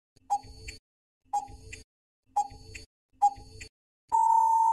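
Countdown timer sound effect: a clock-like tick-tock about once a second, four times, then a steady beep about four seconds in that marks the time running out.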